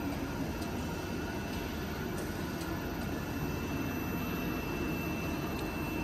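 Roller embossing machine running steadily as an MDF board feeds through under its heated patterned roller: an even mechanical hum, with a faint high steady whine coming in about halfway through.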